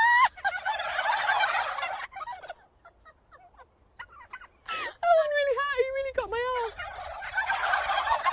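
A large flock of domestic turkeys gobbling all together in two loud bursts, each right after a woman's shout. The gobbling breaks off for a couple of seconds in between.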